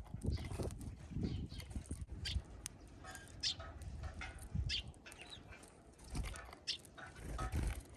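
Small songbirds calling at a feeder: a few short, separate chirps about a second apart, over irregular low thumps.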